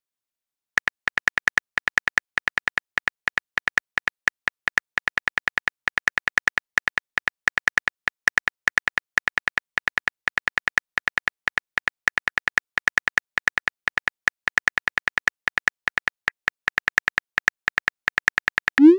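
Simulated phone-keyboard typing clicks from a texting-story app: rapid, uneven taps, several a second, as a message is typed out. A short rising blip comes at the very end as the message is sent.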